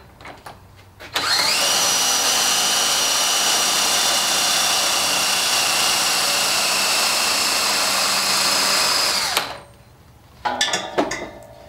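Cordless drill spinning a high-flow power steering pump by its shaft: it winds up quickly, runs steadily for about eight seconds while the pump pushes fluid from the reservoir through the lines into a sight glass, then stops. A few short knocks follow near the end.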